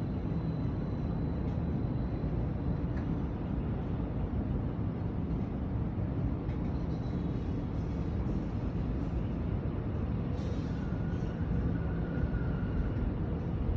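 Steady low rumble of outdoor city ambience, even throughout.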